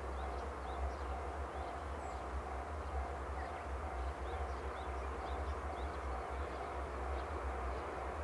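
Small birds chirping over a steady low rumble, with a faint tone pulsing on and off a few times a second.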